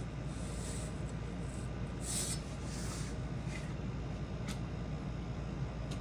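A few brief rubs and scrapes, then two small sharp clicks, as hands handle a Crosley turntable's platter and rubber drive belt. A steady low hum runs underneath.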